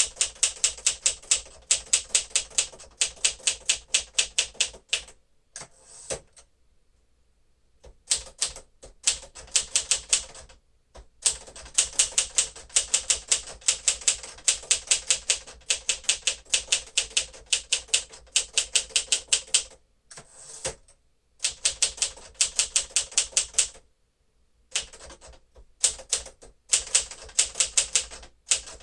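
1954 Smith-Corona Silent-Super manual typewriter being typed on fast, with rapid runs of keystrokes several a second and a few brief pauses, the longest a couple of seconds long.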